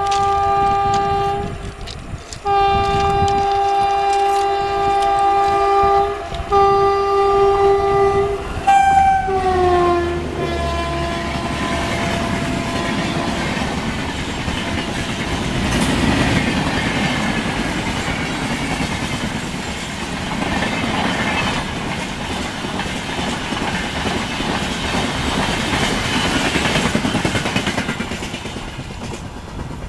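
Horn of an Indian Railways WAP-1 electric locomotive sounding in three long blasts over the first nine seconds, the last one dropping in pitch as the locomotive passes. Then the LHB passenger coaches of an express train rush past with rumbling wheel clatter, which fades near the end.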